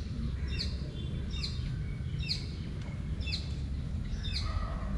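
A bird calling over and over, a short falling chirp about once a second, over a low steady rumble.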